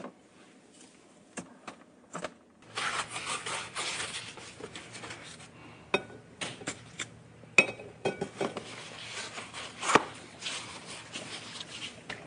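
Picture frames being handled and moved on a wall: rubbing and rustling with scattered sharp knocks and clicks, starting sparse and busier from about three seconds in, with the loudest knock about ten seconds in.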